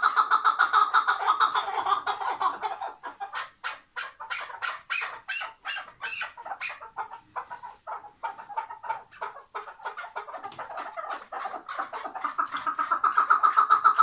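Chukar partridge calling: a fast run of chuckling notes, which breaks into separate sharp chuck notes after a couple of seconds and builds back into fast chuckling near the end.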